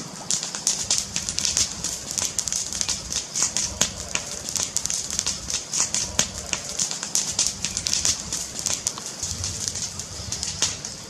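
Wood fire crackling: many irregular sharp pops and snaps over a steady hiss and a low rumble.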